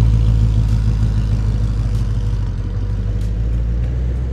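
Supercharged V8 exhaust of a 2023 Ford Mustang Shelby GT500 running at low revs as the car pulls slowly away, growing steadily fainter.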